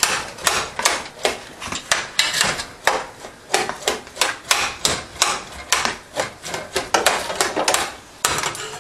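Metal spoon breaking up clumps of cooked rice in a stainless steel saucepan, knocking and scraping against the pot's sides and bottom in quick repeated strokes, about two to three a second.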